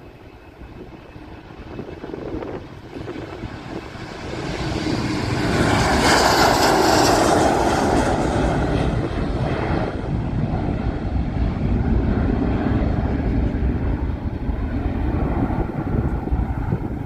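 Thai Lion Air jet airliner passing close by: its engine noise swells over a few seconds, is loudest and most hissing about six to eight seconds in, then settles into a steady heavy rumble.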